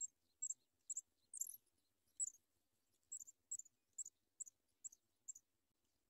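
Pipit nestlings begging: a string of short, high, thin peeps, roughly two a second with a brief pause in the middle, as the chicks gape for food.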